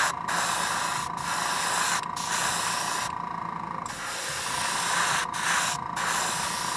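Airbrush spraying paint at high air pressure: a steady hiss broken by short pauses about once a second, and a longer pause about three seconds in.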